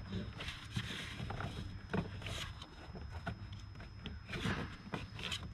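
Hands working a hose clamp onto a rubber intake coupler under the bonnet: scattered rubs, scrapes and light clicks of the metal clamp against rubber and plastic.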